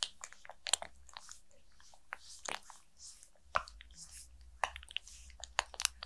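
Close-miked hand sounds around a mannequin head: irregular sharp clicks and crackles, a few every second, with a low rumble joining in past halfway.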